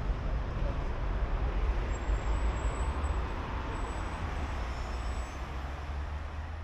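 City street traffic noise, with a motor vehicle passing and a heavy low rumble. It slowly fades over the last few seconds.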